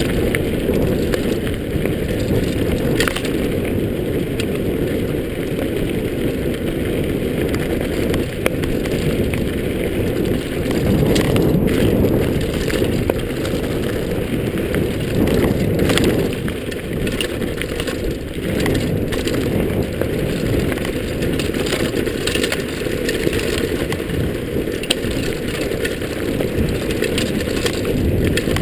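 Mountain bike rolling fast down a gravel track: a steady rumble of knobby tyres on loose stones, with frequent short clattering knocks from the bike jolting over the rough surface, heard through a GoPro's housing.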